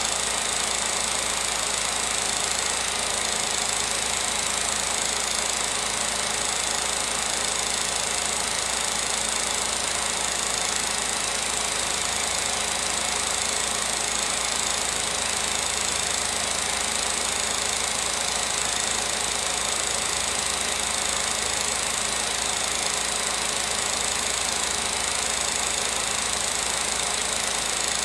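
16mm film projector running: a steady mechanical whir and clatter that does not change.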